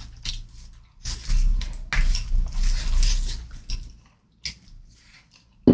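Close-miked chewing of food, with wet, squishy mouth clicks, densest from about one second in to nearly four seconds.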